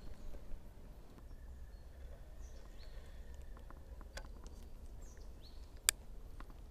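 Quiet outdoor woodland ambience: a low steady rumble with a few faint, short bird chirps, scattered small clicks, and one sharp click about six seconds in.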